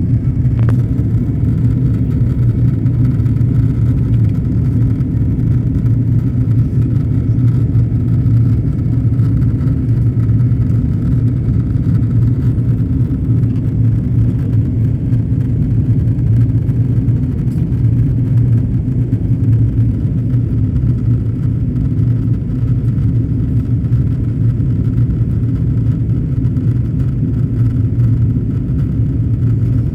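Steady cabin noise inside an Airbus A330 in flight: a constant low rumble of the jet engines and the airflow over the fuselage.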